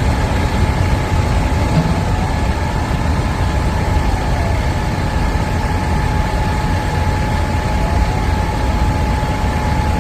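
Heavy engine running steadily at idle with a low rumble and a steady high whine over it, while a faint siren wails up and down several times in the background.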